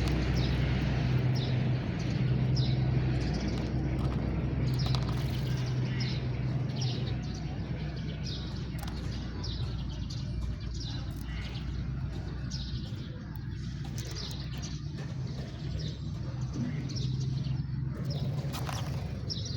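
House sparrows chirping: short, repeated chirps about one or two a second, over a steady low hum.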